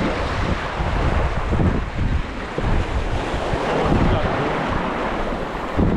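Surf washing and splashing over the granite boulders of a rock jetty, with wind buffeting the microphone.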